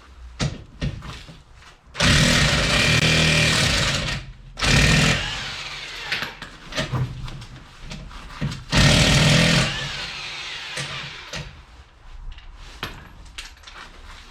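Impact wrench running on suspension or brake bolts in three bursts: a long run of about two seconds, a short one right after, and another about four seconds later, with lighter tool clatter in between.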